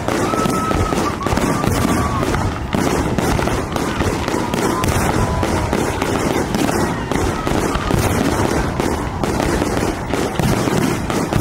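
Fireworks display firing continuously: a dense stream of crackling and booming shell bursts with no pause.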